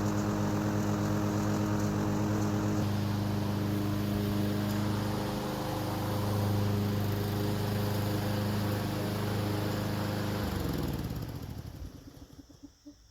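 Masport Rotarola petrol push mower engine running steadily, then shut off about ten and a half seconds in, its note falling as it winds down to a stop.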